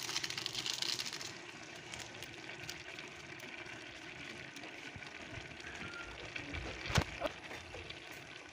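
Rice simmering in a large steaming pot, a soft hiss with faint crackling, stronger for the first second or so. A single sharp click about seven seconds in.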